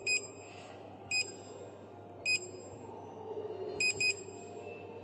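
Short, high electronic beeps from a DWIN 7-inch HMI touchscreen's buzzer, one for each touch on the screen: about five at uneven intervals, two of them in quick succession near the end.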